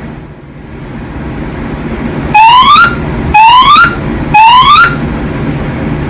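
Fire alarm voice-evacuation speakers sounding the evacuation signal between announcements: three rising whoop tones about a second apart, each about half a second long, over a steady low rumble.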